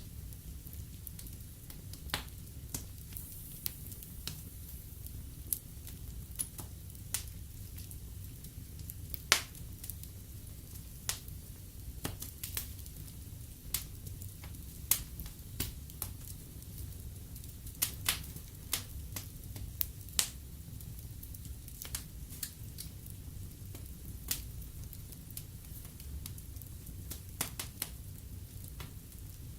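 Wood fire crackling in a fireplace: irregular sharp pops, a couple a second, some much louder than others, over a low steady rumble of the flames.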